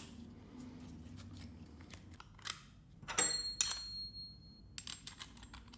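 Accessory change on a Metabo MT 18 LTX BL Q SL cordless multi-tool's quick-change Starlock Plus mount: a series of clicks and metal clinks as the accessory is taken off and fitted, one cluster leaving a thin metallic ring that lasts about a second.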